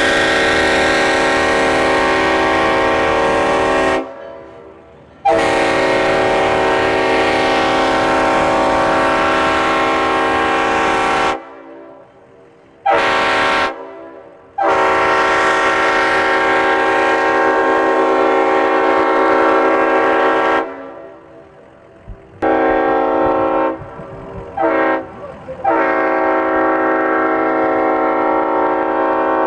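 Multi-chime railroad air horn blowing a chord: a blast running on from before, then two long blasts of about six seconds each, with short toots between them and a flurry of shorter blasts near the end. Each blast slides up in pitch as it sounds. A low rumble carries on underneath between blasts.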